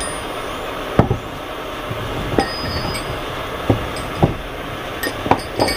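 A wooden block knocked against the steel starter ring gear of a 6.9 IDI diesel's flexplate to drive the old ring gear off. There are about six irregular knocks, some with a short metallic ring.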